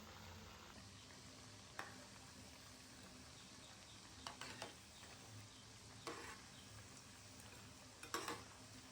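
Chakali deep-frying in oil with a faint steady sizzle, and a few light knocks of a utensil against the pan.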